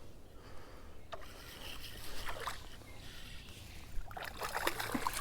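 Water splashing and sloshing in a shallow creek as a hooked smallmouth bass is fought in. The splashes come thicker and louder near the end as the fish is brought to hand.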